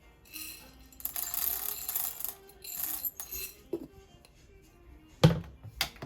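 Quiet background music with a rushing hiss for about a second, then a couple of sharp knocks of hard objects near the end.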